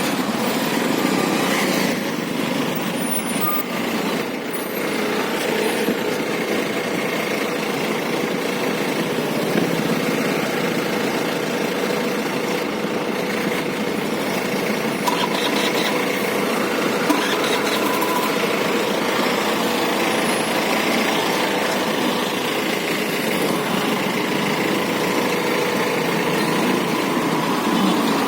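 Steady running of a moving scooter's engine with wind and road noise, unchanging throughout.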